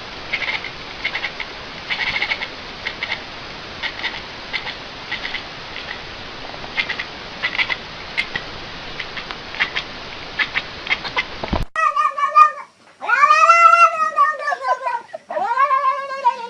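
A cat yowling in three long, drawn-out calls that rise and then fall in pitch. Before it comes a hissy recording with short high chirps every second or so, from a source that can't be told.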